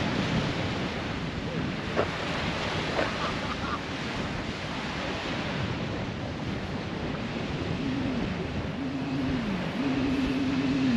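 Small waves washing onto a sandy beach, with wind buffeting the microphone. A low, wavering hum comes in near the end.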